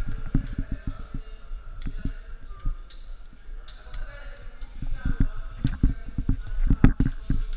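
Irregular knocks and clicks of caving gear and a helmet camera bumping and rubbing against rock while a caver works along a rope, with muffled voices underneath.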